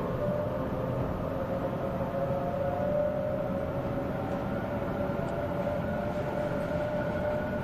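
Inside a Waratah electric train carriage: steady hum and rushing noise from the train's onboard equipment, with a few held whining tones, one drifting slightly upward about a third of the way in.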